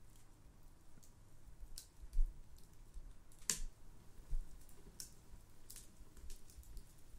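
Spoon clicking and scraping against a bowl during eating: a few scattered, soft clicks, the sharpest about three and a half seconds in, with faint low knocks on the table.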